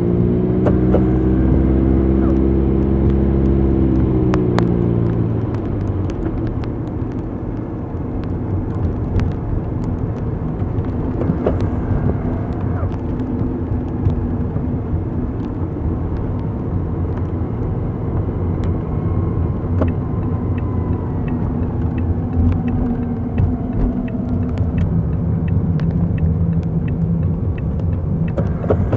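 A car driving on city streets. An engine hum is heard for about the first five seconds, then gives way to a steady road and tyre rumble with scattered light ticks.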